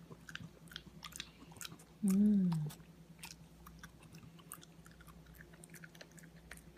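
Boston terrier and Persian cat chewing baked pumpkin dog treats: an irregular run of small crisp crunching clicks. A little after two seconds in, a short hummed voice sound, like an "mmm", is the loudest thing, and a faint steady low hum sits underneath.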